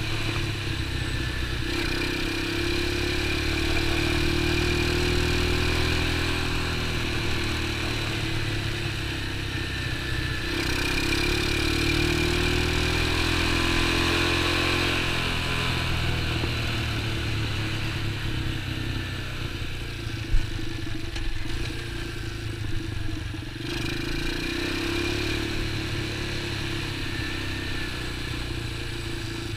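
X19 super pocket bike's small engine running as it is ridden, its pitch rising and falling several times with the throttle. A single sharp click about twenty seconds in.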